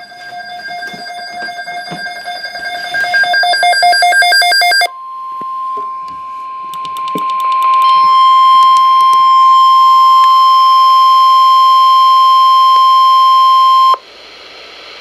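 Midland EH55VP weather alert radio sounding its alarm: rapid beeps that grow louder for about five seconds, then the steady 1050 Hz NOAA Weather Radio warning tone, held for about nine seconds and cutting off suddenly, signalling an incoming severe weather alert.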